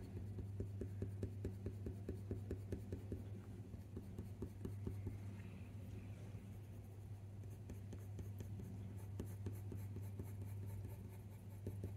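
Faber-Castell Polychromos Cold Grey II colour pencil scratching lightly across textured hot-press watercolour paper in quick, short, repeated strokes as the grey tone is blended in. A steady low hum runs underneath.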